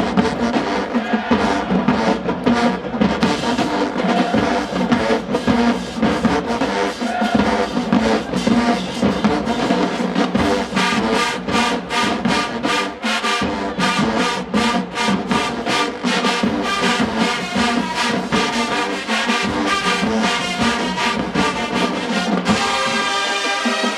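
HBCU marching band playing: massed brass with trombones and trumpets over drums, with a steady beat.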